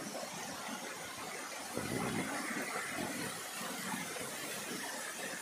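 Water splashing and churning in a tank crowded with catfish, a steady rushing hiss that swells slightly about two seconds in.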